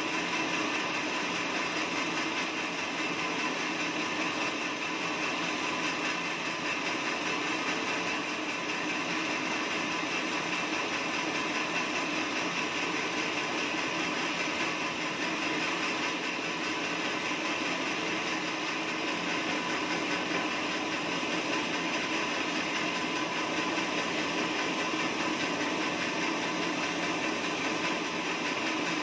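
Band sawmill running steadily, its blade sawing lengthwise through a teak log as the carriage feeds it past. The sound holds the same level throughout.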